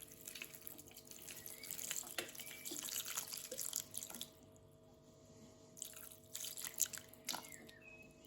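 Water splashing and dripping in two spells, a longer one of about four seconds and a shorter one near the end, with a few birds chirping.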